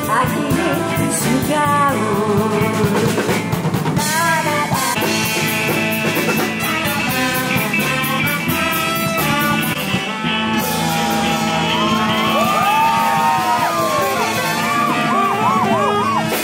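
A live band plays, with a woman singing into a microphone over saxophone, guitar and drums.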